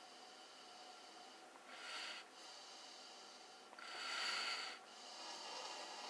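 A person's breaths heard from a distance: drawing on a cigar and blowing the smoke into a vacuum hose to smoke-test the engine intake for a leak. Three breathy puffs, the loudest about four seconds in.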